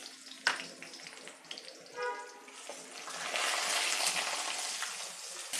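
Dry red chillies with chana dal and urad dal frying in hot oil in an iron kadai: a steady sizzle that grows louder about three seconds in, with a sharp click from the steel spatula about half a second in.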